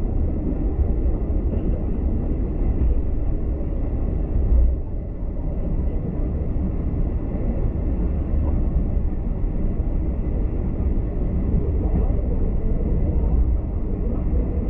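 Steady low rumble of a V/Line passenger train running along the track, heard from inside the carriage, with a brief louder bump about four and a half seconds in.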